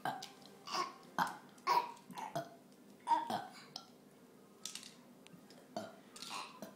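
Children burping, a quick string of short burps one after another.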